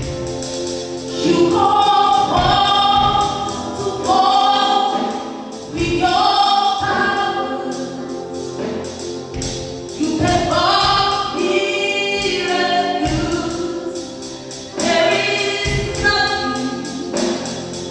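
A church choir singing a gospel song, with percussion beating steadily under the voices.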